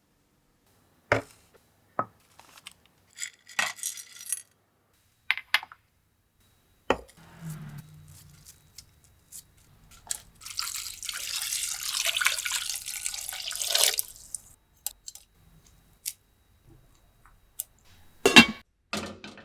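Kitchen preparation sounds: scattered knocks and clinks of utensils and glassware, then water pouring for about four seconds midway, and a few more knocks near the end.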